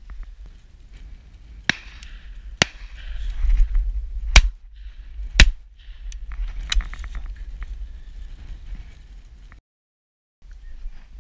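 Shotgun shots at driven pheasants: two quieter shots, then two loud ones about a second apart, with a quick clatter of clicks shortly after. Low wind rumble on the microphone lies under it all, and the sound drops out briefly near the end.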